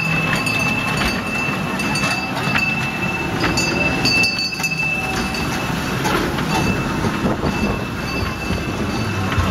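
Miniature amusement-park kiddie train running on its track, with irregular clacks from the wheels over a steady rumble. A thin high whine comes and goes.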